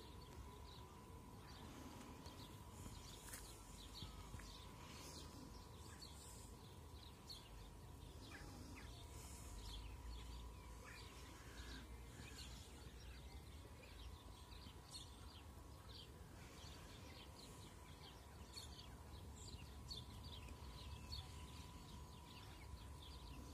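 Faint outdoor ambience: small birds chirping and calling now and then over a low, steady rumble.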